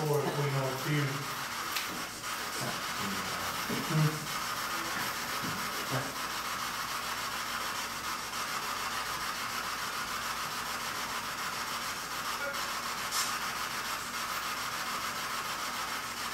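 Spirit box sweeping through radio stations: a steady hiss of radio static, with a brief voice-like snippet at the start and a few short blips between about two and six seconds in.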